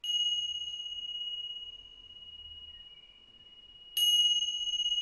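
Pair of tingsha cymbals struck together twice, about four seconds apart, each strike leaving one clear high ringing tone that slowly fades. They mark the end of the guided relaxation, the cue to wake up.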